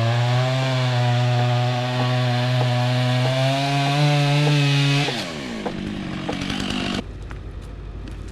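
A two-stroke chainsaw revs up and runs at full throttle, cutting into the madrone trunk for felling. About five seconds in, its pitch drops as it throttles back. Near the end there is a quieter stretch of scattered clicks and rustling.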